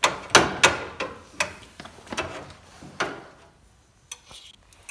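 Sharp metal clanks and knocks, about a dozen over three seconds and then fading out, as a quarter midget's exhaust pipe is worked into position in its support collar.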